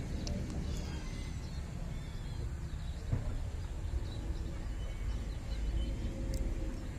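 Outdoor background: a steady low rumble, with faint chirps of small birds now and then.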